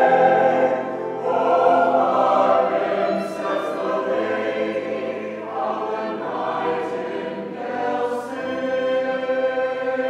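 Mixed-voice high-school choir singing a sustained passage in harmony, with crisp sung consonants here and there; a violin plays along.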